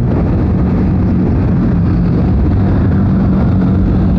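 Motorcycle engine running steadily at road speed, a constant low hum under a rush of wind and road noise on the moving bike.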